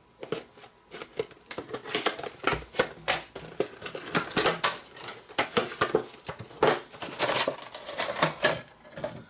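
Packaging being handled and opened: a quick, irregular run of clicks, taps and rustles from boxes and plastic wrapping.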